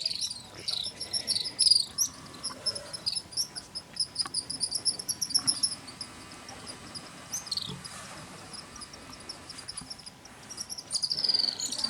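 Insects and small birds chirping at high pitch. A rapid pulsing chirp runs through the first half, fades, and comes back near the end, with sliding calls near the start and about eight seconds in.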